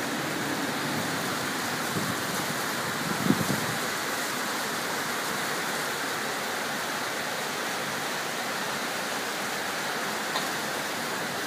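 Heavy rain pouring steadily in a thunderstorm, an even, dense hiss, with one brief low thump about three seconds in.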